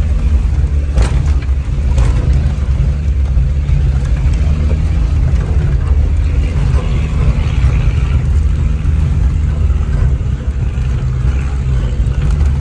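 Land Rover Discovery 2 engine running steadily at low revs, heard from inside the cabin as the vehicle crawls up a rocky track. There are two sharp knocks about one and two seconds in.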